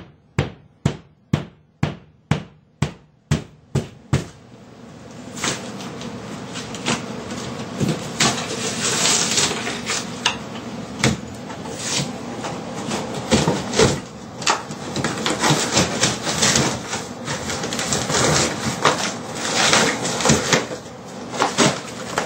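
Drywall being cut open and broken out of a wall by hand: about ten evenly spaced sharp strokes in the first four seconds, then continuous scraping, crunching and tearing of gypsum board as pieces are worked loose and pulled away.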